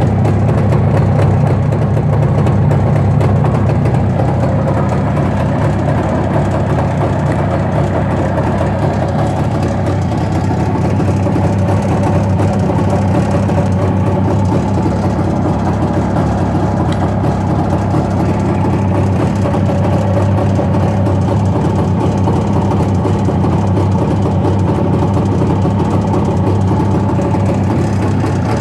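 Jawa 350 motorcycle's two-stroke twin engine idling steadily, without revving.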